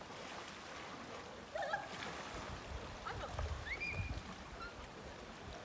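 Quiet seashore sound of shallow sea water moving gently among rocks, with a few faint, brief high-pitched calls about one and a half seconds in and again about four seconds in.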